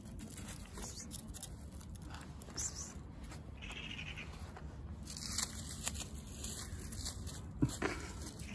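Dry fallen leaves rustling and crackling in short, scattered crackles that come thicker in the second half.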